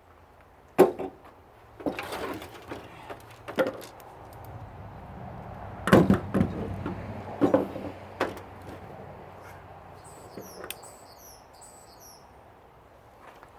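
Scattered knocks and rattles of metal parts being handled and pulled apart during a teardown of a security monitor, the loudest clatter about halfway through. Faint bird chirps near the end.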